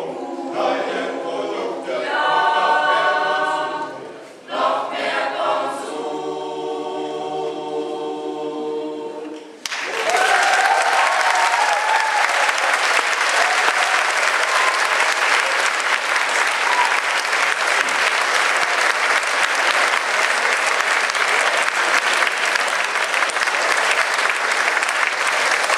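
Mixed choir singing the closing phrases of a song, ending on a long held chord. About ten seconds in, the audience bursts into applause that continues steadily.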